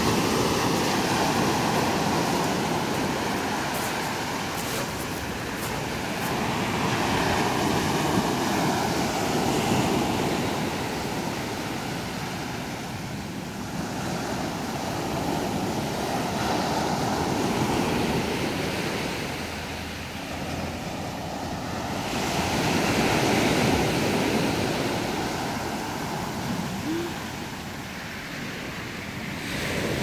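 Small sea waves breaking and washing up a pebble beach, a steady rushing surf that swells and ebbs every six to eight seconds.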